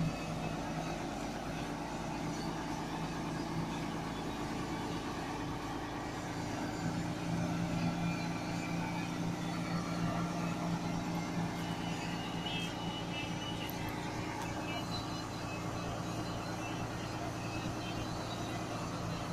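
XCMG QY30K truck crane's diesel engine running steadily as the boom is raised and swung, a constant low hum that swells slightly about seven to ten seconds in.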